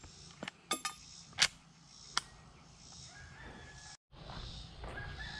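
A few sharp clicks and knocks, the loudest about a second and a half in, over faint outdoor background with a thin steady tone; the sound drops out for an instant about four seconds in.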